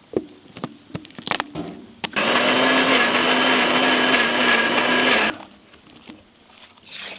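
Electric mixer grinder with a steel jar running for about three seconds, grinding peanuts, onion and dried red chillies into a paste, then stopping abruptly. A few sharp clicks come before it as the plastic lid and jar are fitted.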